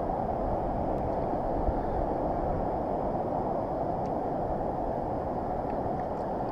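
Steady wind noise buffeting the camera microphone: an even, dull rumble with no distinct events.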